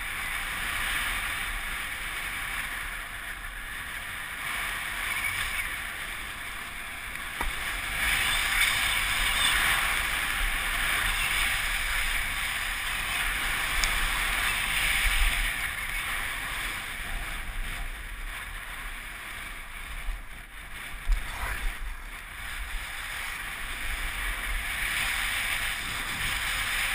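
Skis sliding and carving over packed snow, a continuous hiss, mixed with a low rumble of wind buffeting the microphone. It grows louder in the middle as speed picks up, and there is a brief knock about three quarters of the way through.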